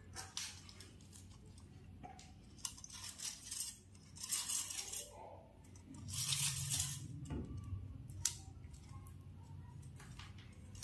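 Rustling and scraping from an RGB LED strip being handled and pulled off its plastic reel, in irregular bursts, over a faint low steady hum.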